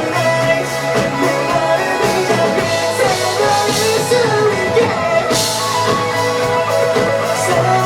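Live rock band music, loud and continuous: electric guitar and drum kit playing under a melodic lead line.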